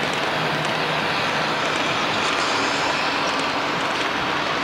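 HO-scale model passenger cars rolling past on the track: a steady rushing rattle of metal wheels on rail, with scattered light ticks.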